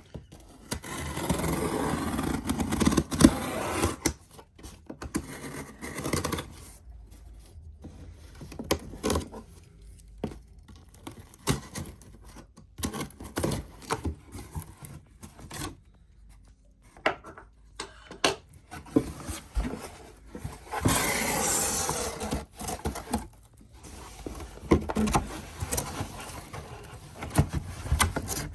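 Packaging being handled and opened by hand: irregular scraping, rubbing and rustling with scattered clicks and knocks, louder in two longer stretches of rustling near the start and about two-thirds through.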